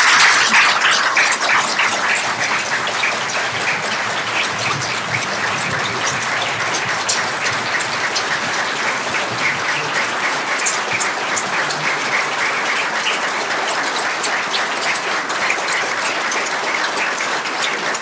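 Audience applauding: many people clapping together, loudest at the start and then holding steady without a break.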